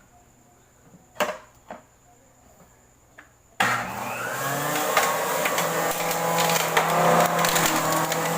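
A few light clicks and taps, then about three and a half seconds in an electric blender switches on and runs loud and steady, chopping pieces of carrot with a rattle of small ticks.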